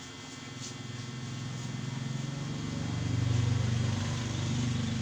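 A small engine or motor running with a low, buzzing hum that swells steadily louder from about a second in.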